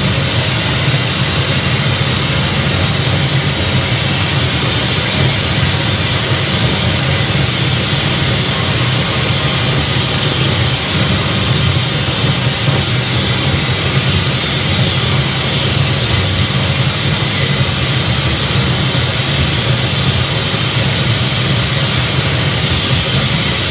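Loud, unchanging drone of rumbling noise with a deep low rumble and a bright hiss on top, played through a venue's sound system as part of a live noise performance.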